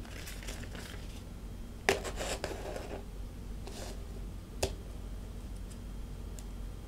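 Handling noise as a chrome Toyota emblem is moved onto a sheet of paper: a sharp click about two seconds in, then about a second of paper rustling, a softer rustle, and another sharp click near the middle.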